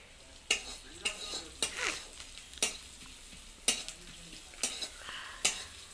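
A spoon scraping and knocking against a metal kadhai, roughly once a second, while chopped onions fry in it with a faint sizzle.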